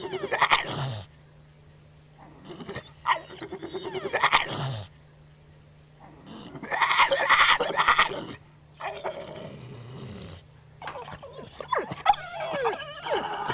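Dog vocalising in four rough, drawn-out bouts, each ending on a falling low note, then whining with its pitch bending up and down near the end.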